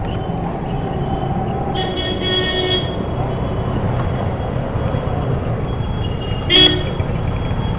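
Busy street traffic with vehicle horns honking: a honk of about a second, two seconds in, and a short, loud toot near the end.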